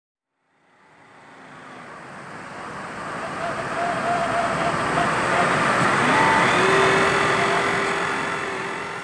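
Billing Boats Nordkap 476 RC model fishing boat under way: a motor whine over water noise that swells up and fades away, with a tone rising in pitch about six seconds in.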